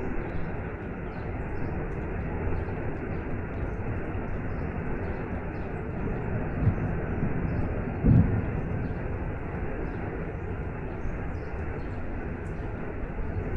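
Waterfall and rain: a steady, even rushing of water, heaviest in the low end, with a brief low thud about eight seconds in.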